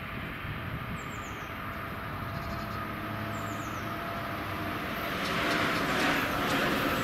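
DB Talent 2 (class 442) electric multiple unit approaching down the line: a rush of wheel and rail noise that swells and grows louder about five seconds in.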